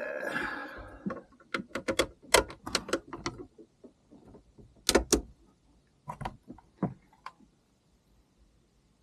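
Metal parts of a paramotor frame being handled: a short scrape, then a run of sharp clinks and knocks, two loud knocks about five seconds in, and a few more shortly after.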